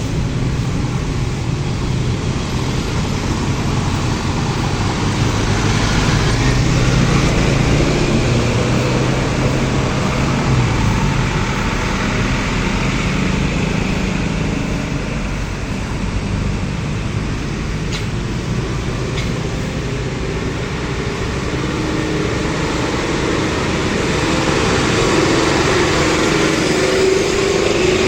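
Road traffic passing: vehicle engines running with tyre and road noise, and one engine rising in pitch near the end as a vehicle accelerates.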